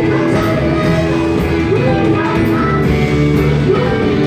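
Live rock band playing a song, with a singer over guitar, bass, drums and keyboards.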